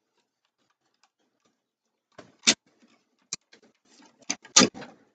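A handful of short, sharp clicks and taps, starting about two and a half seconds in, from wiring being handled as a wire is pulled out of an electrical box.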